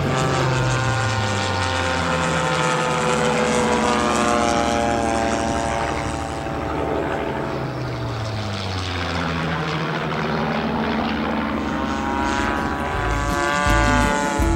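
Engine and propeller of a large radio-controlled model warbird flying passes. The pitch slides down as it goes by and away, then climbs again as it comes back around.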